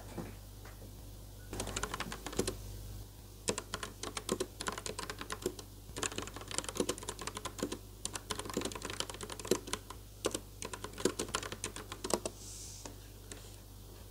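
Typing on a Logitech mechanical keyboard with round typewriter-style keycaps: rapid key clacks in bursts with short pauses, starting about a second and a half in and stopping near the end.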